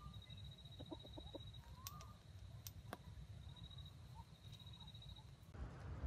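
Red junglefowl rooster clucking faintly: a quick run of four or five short clucks about a second in, with a few soft rising-and-falling calls around it. A steady high-pitched whine runs beneath and stops near the end, where a rush of noise comes up.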